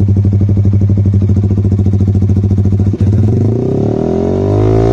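Yamaha MT-15's single-cylinder engine through an aftermarket SC Project silencer, running at idle with a rapid, even exhaust pulse, then revving up about three seconds in with a steadily rising pitch.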